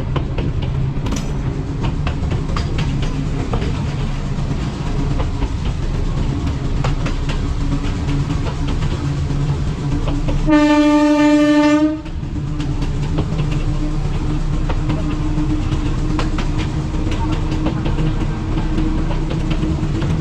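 Train running along the track, a steady rumble with frequent clicks of the wheels over rail joints. About halfway through, the locomotive's horn sounds once for about a second and a half.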